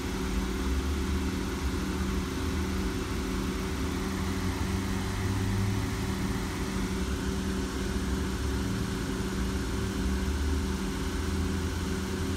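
A steady low mechanical drone with several constant humming tones and a deeper rumble that swells slightly now and then, like an engine idling or a machine running.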